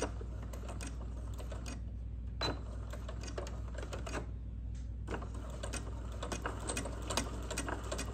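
Domestic electric sewing machine stitching a hem: a steady motor hum with the needle ticking, slow and uneven at first, then quicker and regular from about five seconds in.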